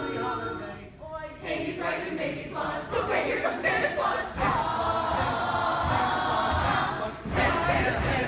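High school show choir singing in harmony. The voices drop away briefly about a second in, then come back in full.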